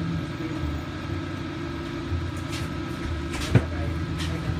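A steady low mechanical hum with a few sharp clicks, the loudest about three and a half seconds in.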